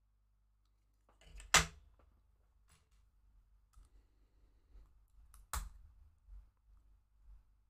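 LEGO plastic pieces clicking as they are handled and pressed together. There are two sharp snaps about four seconds apart, with faint ticks and rattles of handling between them.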